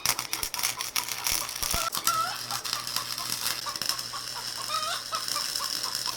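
Flux-core wire welder tacking steel angle iron: a dense, steady crackling sizzle over a low electrical hum. Chickens cluck in the background.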